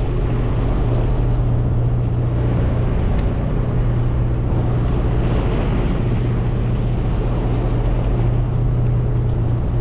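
A large fishing boat's engines running with a steady low hum and a constant rushing hiss over it.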